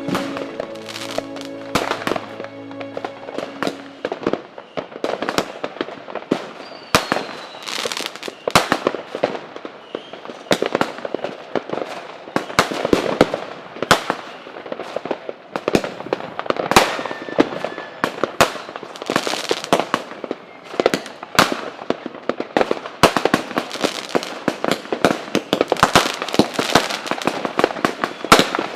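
Firecrackers going off one after another in rapid, irregular succession, sharp bangs and crackles overlapping. Background music fades out over the first few seconds.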